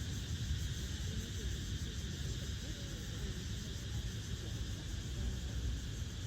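Steady beach ambience: wind rumbling on the microphone over the wash of ocean surf, with faint voices in the distance.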